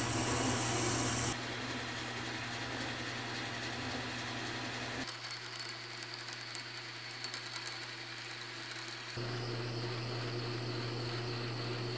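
Metal lathe running with a steady motor hum while a twist drill bores through the centre of a sand-cast pulley blank, then a reamer opens the bore. The sound shifts at cuts about 1, 5 and 9 seconds in, and between about 5 and 9 seconds it is quieter, with light ticks.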